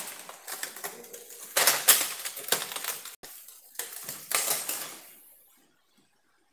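Irregular clattering and rustling of someone moving about, in short uneven bursts, until the sound cuts out to silence about five and a half seconds in.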